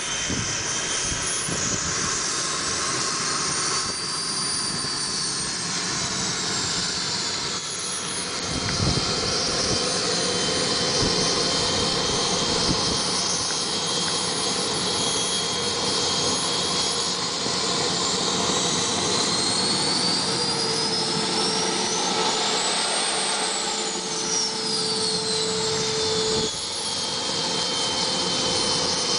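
An RC BAe Hawk model's small jet engine running with a steady rushing roar and a high whine. The whine drifts up and down in pitch, climbing to its highest about three-quarters of the way through, then falling away.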